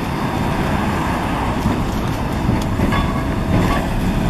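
SEPTA Kawasaki light rail vehicle running along street track toward the listener, growing louder as it nears, with a few clicks from its wheels over the rail joints.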